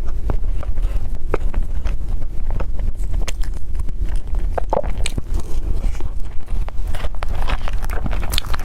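Close-miked eating: chewing and biting, with many short crunchy clicks and smacks, over a steady low hum.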